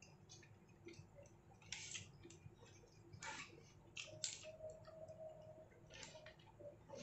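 Quiet, irregular crinkles and scrapes of a paper food wrapper as fingers press and gather fried rice on it to eat by hand.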